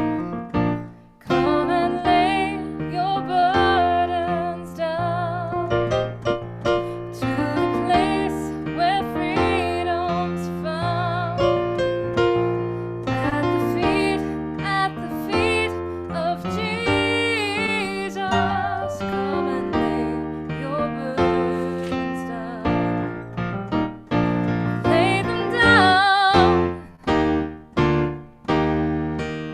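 Piano music, sustained chords in the bass under a melody line that wavers with vibrato.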